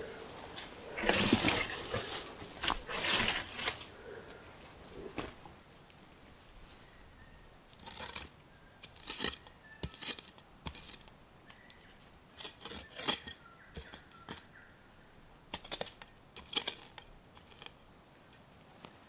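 Dry sticks, bark and leaf litter crackling and snapping as forest-floor debris is dragged and cleared by gloved hands, in irregular clusters of sharp cracks, loudest in the first few seconds.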